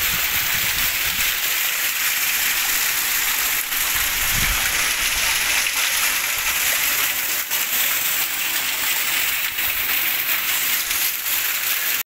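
Heavy rain falling steadily, splashing into standing water on a flooded concrete floor and streaming down a wall: an even, steady hiss.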